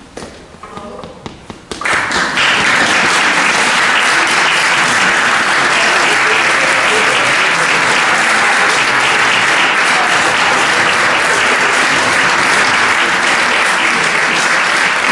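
Audience applauding: a few scattered claps at first, then about two seconds in the clapping swells into steady, full applause.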